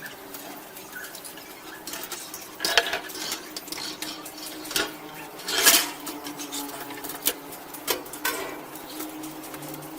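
Metal parts clinking and clattering as they are handled, a series of sharp clanks with brief ringing, the loudest a little under three seconds in and just before the middle.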